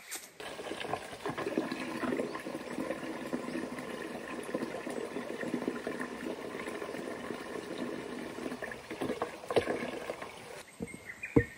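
Water from an outdoor tap running into a bucket, a steady splashing fill. It stops near the end and is followed by a sharp knock.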